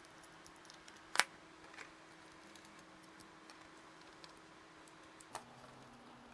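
Faint clicks and taps of small 3D-printed plastic parts being screwed and pressed together by hand, over a faint steady hum. One sharper click comes about a second in, and another near the end.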